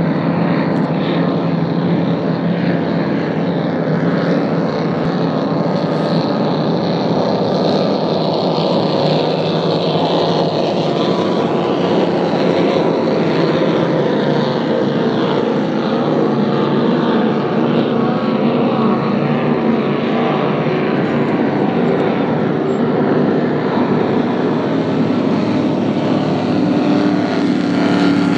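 Powerboat engine running steadily at cruising speed, a loud even drone, under a rushing hiss of water and wind.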